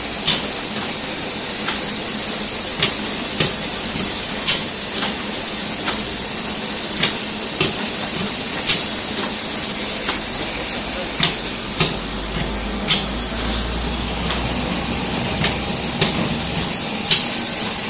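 Pneumatic spot-welding indexer machine running: sharp clacks at irregular intervals, roughly every half second to two seconds, over a steady hiss. A low rumble joins about ten seconds in and fades near the end.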